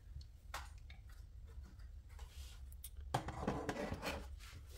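Quiet handling noise of a car instrument cluster on a tabletop: light clicks and rubbing of its plastic parts, a little louder from about three seconds in as it is set down and handled.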